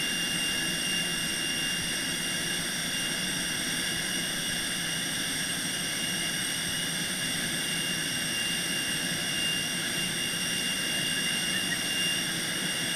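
Jet turbine running steadily, a constant high whine over a steady rumble.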